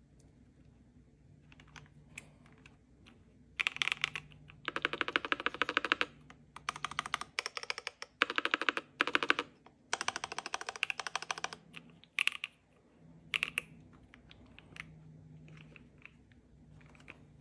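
Typing on a ROG Nightmare II EXTREME mechanical keyboard. A few stray clicks come first, then fast runs of keystrokes for about eight seconds, then a couple of single strokes and scattered light clicks.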